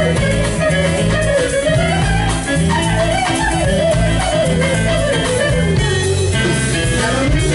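Live band playing, with guitars, keyboard and drum kit over a steady bass line and a melody that wanders up and down.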